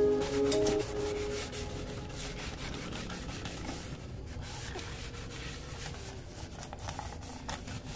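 A scrubber rubbing and scraping around the inside of a plastic water gallon as the jug is turned and shaken, with scattered light knocks.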